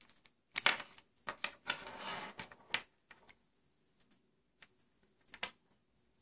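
Handling noise: a run of small clicks and a brief rubbing in the first few seconds, then a few faint ticks and one sharper click about five seconds in.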